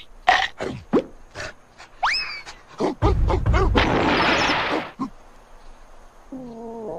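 Cartoon sound effects. First come short squeaks and chirps with two quick rising whistles about two seconds in. Then a loud, noisy roar lasts about two seconds, and a low wavering groan starts near the end.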